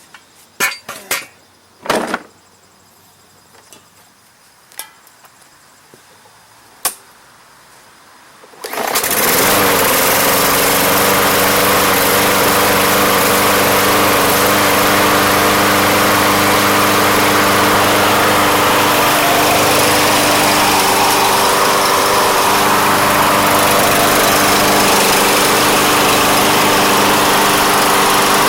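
A few sharp clicks and knocks, then about nine seconds in the MTD 140cc walk-behind lawn mower engine starts and runs steadily at a constant speed. It is the second start attempt after the carburetor with the stuck choke valve was dealt with.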